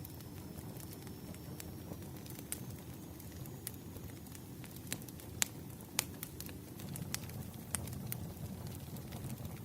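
Firewood burning in a fire, crackling: scattered sharp pops and snaps over a low steady rumble.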